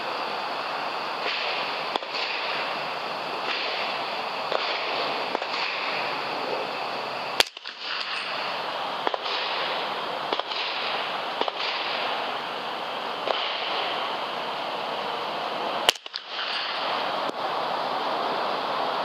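Two rifle shots about eight seconds apart, recorded by the digital scope's built-in microphone over a steady hiss. The sound drops out for a moment right after each shot.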